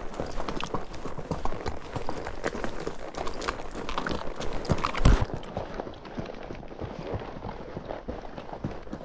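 Horse hooves clopping on a rocky trail under a rider, a steady run of uneven knocks with one louder knock about five seconds in.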